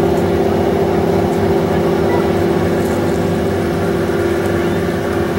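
A boat engine running steadily: a constant drone with a strong, unchanging hum and no change in speed.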